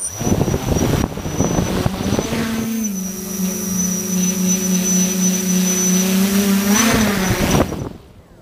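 Tricopter's SunnySky 1400KV brushless motors and propellers buzzing loudly close to the microphone, with a steady hum and a thin high whine. The pitch rises briefly about two and a half seconds in and again near the end. The sound starts and cuts off abruptly.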